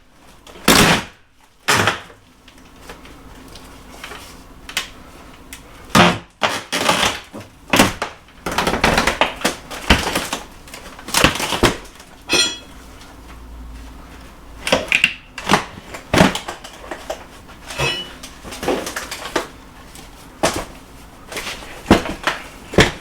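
A section of wooden wall being knocked and worked loose during demolition: irregular sharp knocks and bangs, some in quick clusters, with scraping and clattering in between.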